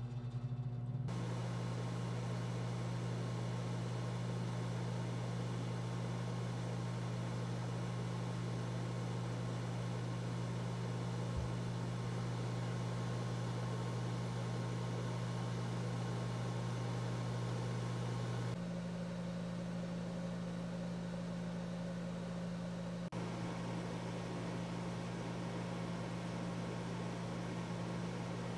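Microwave oven running: a steady electrical hum with a fan, its tone shifting about two-thirds of the way through.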